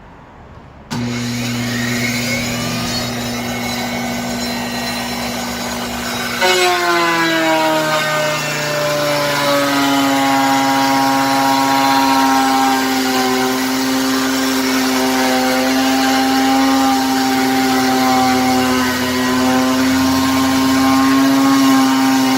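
A woodworking power tool switched on about a second in, running with a steady pitched whine. About five seconds later it bites into the wood: its pitch sags under load and it keeps running steadily as it cuts a groove.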